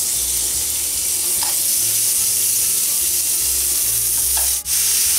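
Beef steaks frying in hot oil in a ridged grill pan, a steady sizzle as the seasoned pieces are laid in with tongs, with a momentary dropout near the end.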